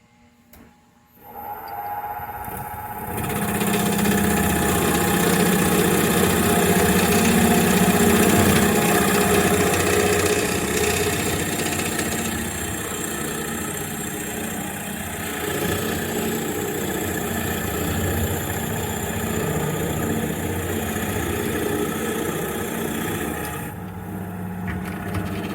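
Wood lathe motor starting up about a second in and coming up to speed, then running steadily while a drill bit bores into the center of a spinning black walnut and hemlock blank, with a steady hiss of cutting over the motor hum. The cutting hiss eases near the end while the lathe keeps running.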